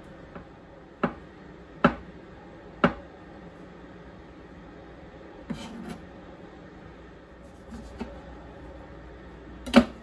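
Kitchen knife knocking on a plastic cutting board while dicing avocado: three sharp knocks about a second apart, then a short scrape as the diced pieces are gathered on the blade, and one loud knock near the end.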